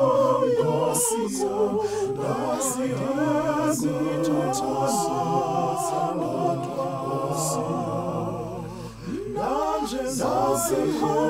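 Unaccompanied vocal group singing a gospel song in harmony, the voices wavering with vibrato. The sound dips briefly about nine seconds in.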